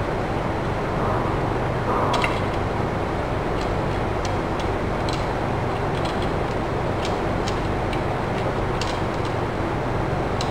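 Scattered light metallic clicks and ticks from parts being fitted by hand on a truck clutch booster during reassembly, over a steady hum.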